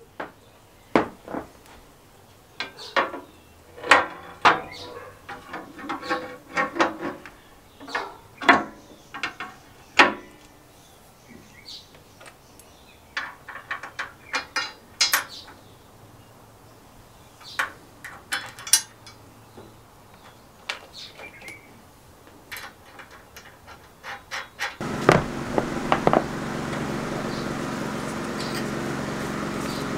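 Irregular metal clicks and clunks from the parts of a restored Suffolk Super Punch cylinder lawnmower being handled and worked. About five seconds before the end a steady mechanical hum sets in and holds.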